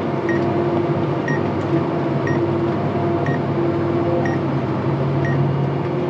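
Tractor running with a steady hum, and a short high beep about once a second.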